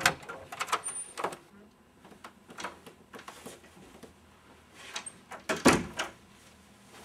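Interior door being opened and pushed shut, with a scatter of light clicks and knocks from the handle and latch, then the door closing with a louder thud near the end.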